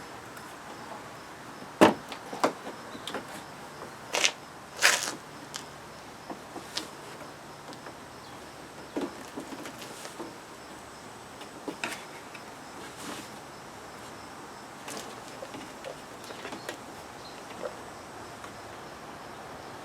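Scattered clicks, knocks and short scrapes of hand tools and plastic trim pieces being handled while panels are unfastened on a car. The sharpest click comes about two seconds in, with two brief scrapes a couple of seconds later.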